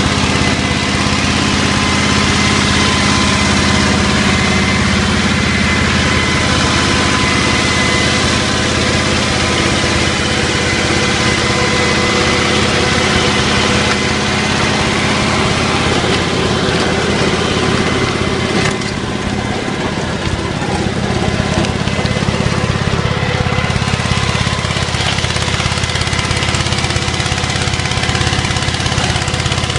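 Goldoni Universal compact tractor's engine running steadily as the tractor drives along, dipping slightly in level for a few seconds past the middle.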